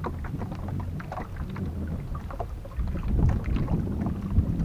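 Sea water lapping and splashing against a small outrigger boat's hull, with low wind rumble on the microphone and a steady low hum underneath.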